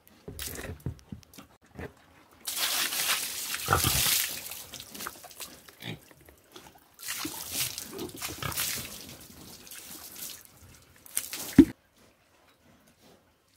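Water being thrown over pigs, splashing onto them and the concrete pen floor in two long rushes, while the pigs grunt; one loud short grunt comes near the end.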